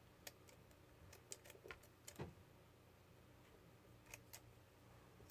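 Scissors trimming thin medical gauze: a few faint, irregular snips and clicks against near silence.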